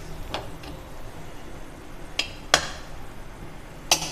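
Steel ladle clinking against a cooking pot and its glass lid while lifting out soft simmered mutton pieces: about five sharp clinks, the loudest about two and a half seconds in.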